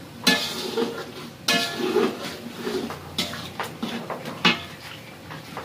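Metal spatula stirring and scraping in a large wok, with four sharp clangs against the pan, the first two ringing briefly.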